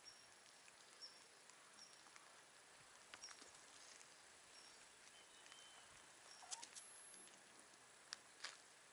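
Near silence: quiet outdoor ambience with a faint high chirp repeating about once a second and a few soft rustles and taps.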